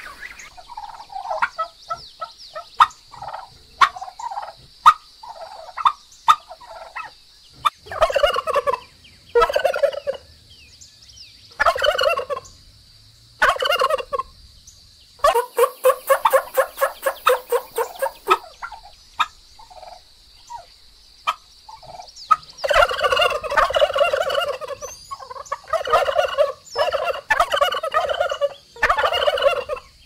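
Domestic turkeys gobbling. Short scattered calls in the first few seconds give way to repeated rattling gobbles about a second long each, coming thick and fast in the last third.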